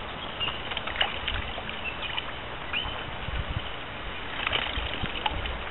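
Shallow river water running and lapping, with a few small splashes as hands move in the current around a large brown trout.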